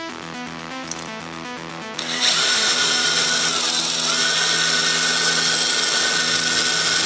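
DeWalt power drill drilling out a rivet in a patio door multipoint lock mechanism. It starts slowly, then about two seconds in runs at full speed with a steady whine that dips briefly around four seconds in as the bit cuts through.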